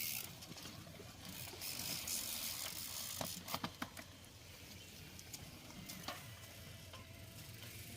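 Bicycle being ridden: a hiss with mechanical rattling and ticking, and a quick cluster of sharp clicks about three and a half seconds in.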